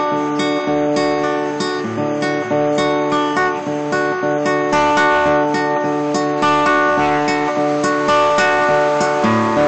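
Acoustic guitar strummed in a steady rhythm, chords ringing with regular strokes.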